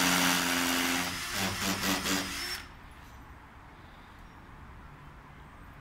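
Cordless drill running under load with a steady whine, then revving in short stuttering bursts from about a second in, and stopping about two and a half seconds in.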